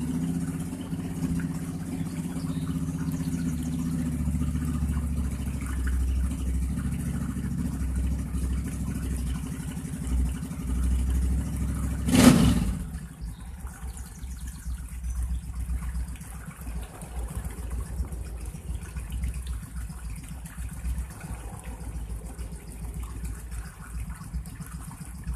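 Suzuki Intruder 1400 V-twin with Vance & Hines exhaust running after a cold start, a steady low idle. About halfway through comes one loud, sharp bang, after which the engine sound drops to a much quieter low rumble.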